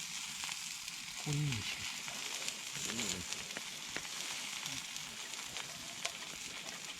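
Food sizzling and crackling steadily in a hot frying pan. A short low vocal sound comes about a second in and again around three seconds.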